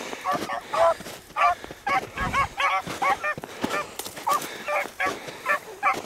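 A pack of beagles baying on a rabbit's trail: a continuous string of short, overlapping calls, several a second, from more than one hound.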